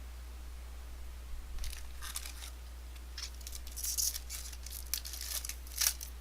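Foil wrapper of a trading-card pack being torn open and crinkled, with irregular short crackles starting about a second and a half in, over a steady low hum.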